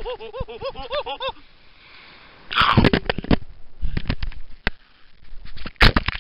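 A quick run of short, arching animal calls, rising in pitch over the first second or so. Then rustling, sniffing and scattered knocks as an animal noses and bumps at the camera up close, with a couple of sharp knocks near the end.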